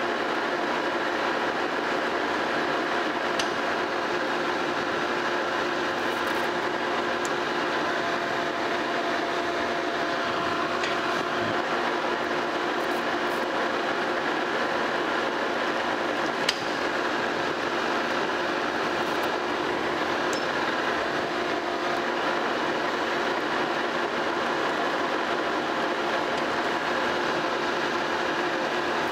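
Monarch Model K metal lathe running steadily under power while a carbide insert cuts a 20-threads-per-inch thread on a steel arbor. The sound is a constant mechanical hum with several steady tones, and a couple of faint ticks.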